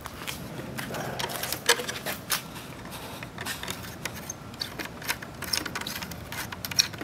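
Worm-drive hose clamp being tightened with a screwdriver: a quick, uneven run of small metal clicks.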